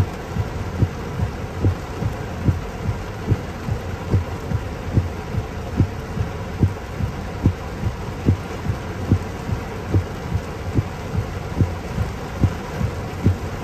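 Heavy rain heard from inside a car stopped in traffic: a steady rush of rain noise with a regular low thump a little more often than once a second.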